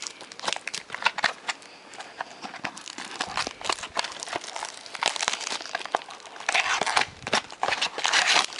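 Packaging on sealed trading-card mini boxes being torn open and crinkled by hand: a dense run of sharp crackles and rustles, thicker and louder near the end.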